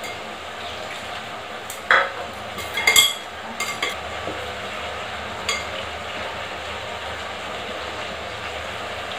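Steady low sizzle of spiced green peas frying in a covered kadhai, with a few sharp clinks and knocks as flour is mixed by hand in a glass bowl.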